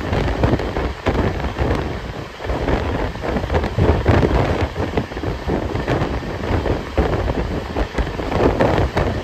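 Wind rushing and buffeting the microphone at an open window of a moving train, over the steady rumble of the train running on the track. The loudness swells and dips like gusts.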